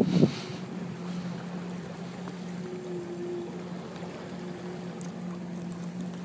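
A boat's engine running steadily, an even low hum. A brief rush of noise at the very start.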